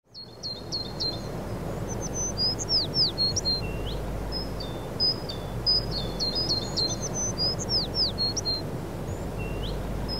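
Songbirds chirping and calling in quick, busy phrases of short high notes and falling whistles, over a steady low outdoor background noise.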